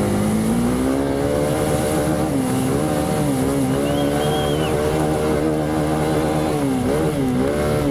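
Hero Xpulse 200's single-cylinder four-stroke engine being ridden hard in an off-road race. Its pitch climbs and drops several times as the throttle is opened and closed.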